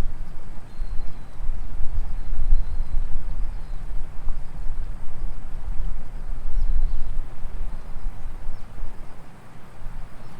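Wind buffeting the microphone in gusts: an uneven low rumble that eases near the end, with faint high chirps behind it.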